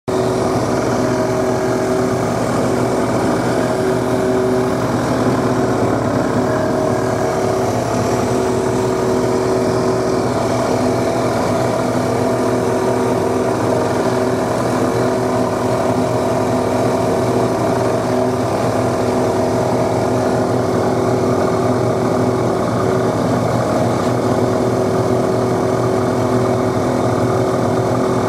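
Abrasive sectioning saw with a resin-bonded aluminum oxide cut-off wheel grinding through a 1045 steel specimen under coolant spray. It is a loud, steady running sound with several held tones.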